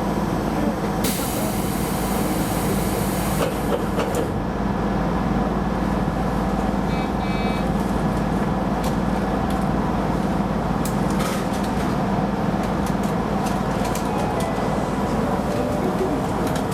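Keisei Line rapid train running, heard from inside the front car: a steady rumble from wheels and running gear. A loud hiss lasts about two seconds near the start, a brief beeping pattern comes about seven seconds in, and scattered clicks follow in the second half.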